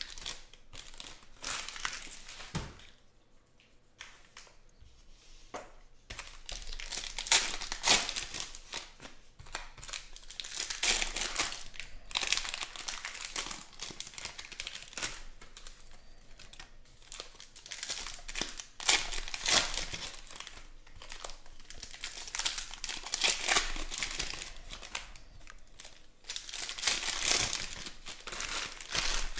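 Foil trading-card pack wrappers being torn open and crinkled by hand, in repeated bursts of crackly rustling with short lulls between them.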